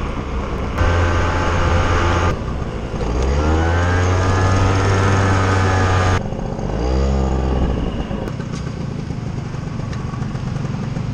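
Motorcycle engine running while riding, with road and wind noise. The engine pitch rises as it speeds up, holds steady, then briefly revs up and down. The sound changes abruptly a few times, and near the end it settles to a lower, rougher running.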